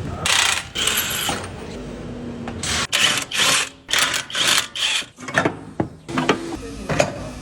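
Mechanic's hand or power tools working on a car's suspension: a series of short rattling, ratcheting mechanical bursts with brief gaps between them.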